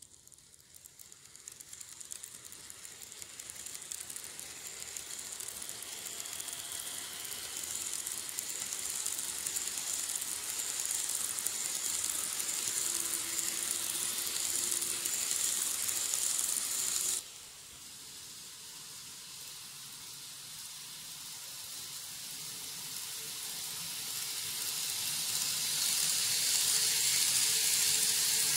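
N-gauge model N700 series Shinkansen train running on its track: a steady hiss and rattle of wheels and motor that grows louder, drops suddenly partway through, then builds again.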